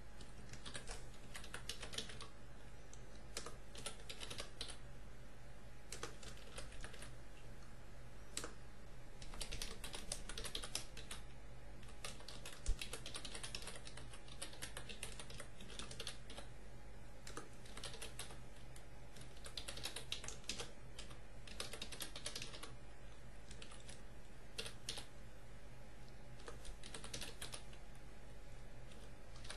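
Computer keyboard typing in irregular bursts of quick keystrokes with short pauses, as code is entered. A steady low electrical hum runs underneath, and one sharper, louder click comes about 13 seconds in.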